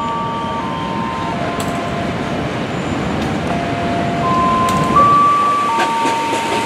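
Former JR 205-series electric commuter train approaching, a steady rumble of wheels on rail. Several high whining tones are held over it, each shifting to a new pitch every second or so. A few sharp clicks near the end, as the wheels come over the rail joints.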